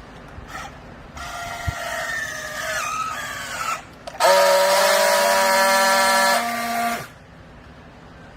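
Garment baling machine running: a mechanical whine whose pitch wavers, then a louder, steady whine that holds for nearly three seconds and cuts off abruptly.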